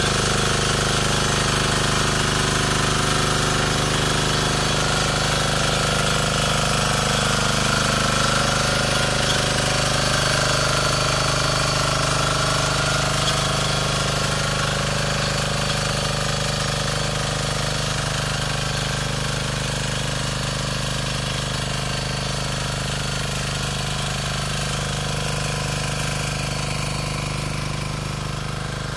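Bertolini 215 walk-behind diesel rotary tiller running steadily with a rapid knocking diesel beat, growing slightly quieter toward the end.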